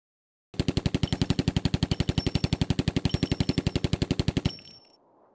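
Fully automatic gunfire: one long, even burst of roughly ten shots a second lasting about four seconds, which stops abruptly with a short fading echo.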